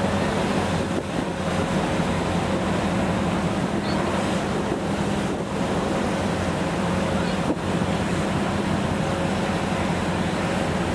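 Car ferry under way: a steady low engine hum beneath the wash of its wake and wind blowing across the microphone.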